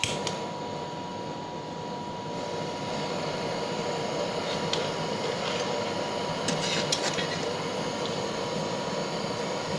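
Butane blowtorch lit with a sharp click, then burning steadily with a hissing rush of flame as it heats a crucible of silver solder and borax flux. A few faint ticks sound over it.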